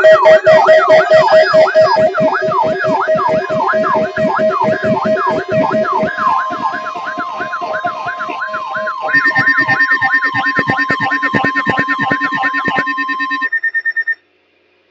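Several electronic sirens wailing together, each sweeping rapidly up and down a few times a second, over steady alarm tones; a steady high tone joins about six seconds in and the layered tones change about three seconds later. Everything cuts off suddenly near the end.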